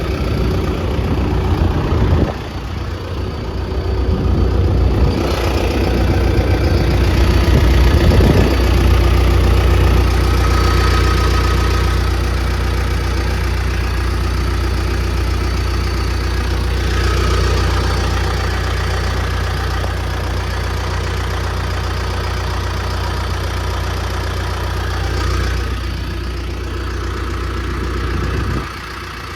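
John Deere 650J crawler dozer's diesel engine idling steadily, heard up close at the engine compartment. It gets louder about eight seconds in and drops away near the end. The engine is being checked for blow-by while it runs, and none is seen.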